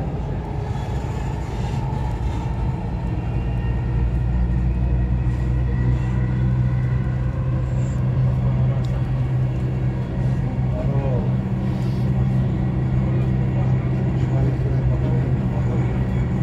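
Dubai Metro train running, heard from inside the carriage: a steady low hum and rumble that grows louder and stronger about four seconds in as the train gathers speed.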